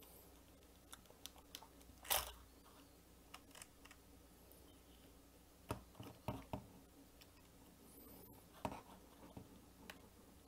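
Faint, scattered clicks and scratches of a small screwdriver on the propeller screw and of hands on the plastic drone arm. There is one louder click about two seconds in and a small cluster of clicks around six seconds.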